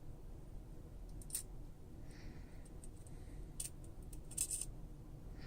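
Light, scattered clicks and taps of small metal repair tools and tiny parts against a smartphone's frame, one or two at a time, with a quick cluster of clicks about four and a half seconds in, over a steady low hum.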